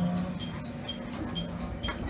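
Electric train standing at a terminus platform: a steady low hum, with an even, rapid high-pitched ticking of about four pips a second.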